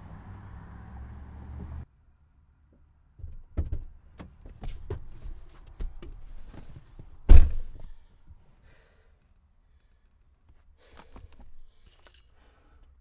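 A door being handled: a run of clicks and knocks, then a heavy thud about seven seconds in as it shuts, with a few faint clicks after. Before that, a steady low background rumble cuts off abruptly near two seconds in.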